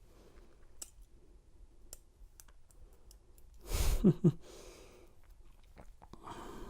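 Faint, scattered small metal clicks of a bent key-ring pick working inside a handcuff's double lock, with a brief sigh about four seconds in.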